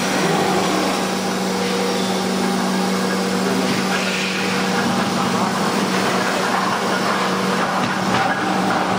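5-axis CNC router spindle running with a long thin bit as it carves white foam: a steady hum over a continuous hiss.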